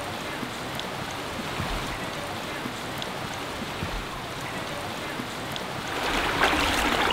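Shallow creek water running and trickling steadily, growing louder about six seconds in.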